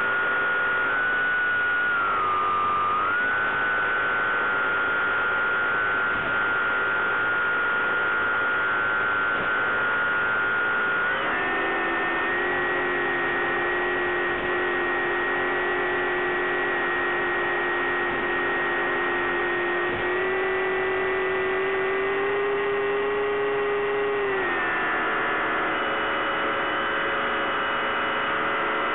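Bix3 RC plane's electric motor and propeller humming steadily in flight. Its pitch dips about two seconds in, steps up about eleven seconds in, and drops again near the end as the throttle changes.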